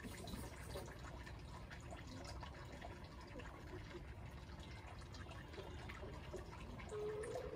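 Faint steady background hiss, with one short chicken call near the end.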